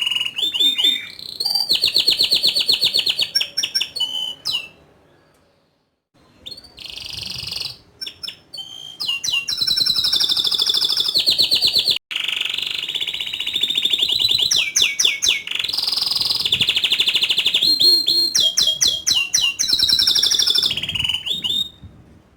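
Domestic canary singing: long, fast rolling trills and quick runs of sharp sliding notes, high-pitched. The song breaks off for about a second and a half about five seconds in, then resumes.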